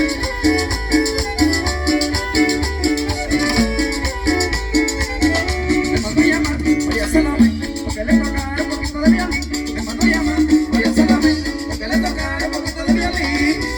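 Chanchona band playing Latin American dance music live: a violin melody over a steady upright-bass line, with a shaken rattle keeping the rhythm.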